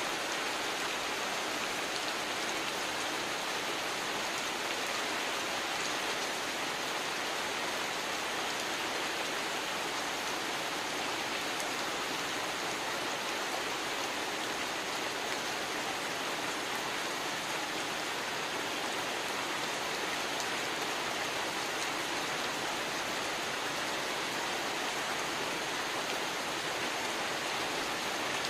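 Heavy rain falling steadily onto a river's surface, an even, unbroken hiss of pouring rain.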